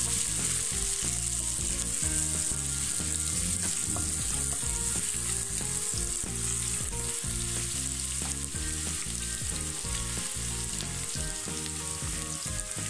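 Sliced onions and green chillies sizzling steadily in hot oil, with the occasional scrape and tap of a spatula stirring them in the pan.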